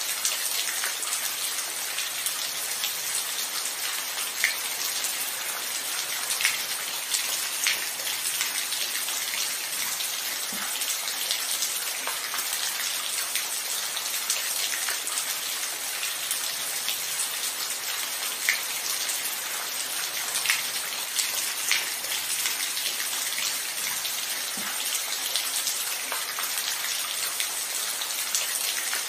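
Steady rain falling, a dense hiss with scattered individual drops ticking on a surface.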